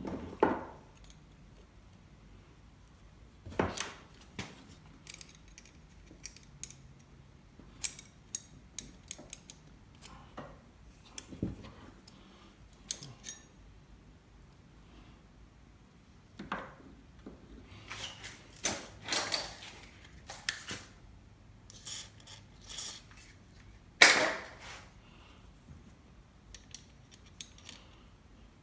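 Scattered metallic clicks, clinks and knocks of hand work on an ATV's throttle cable and linkage, with quiet gaps between; a louder knock comes right at the start and another near the end.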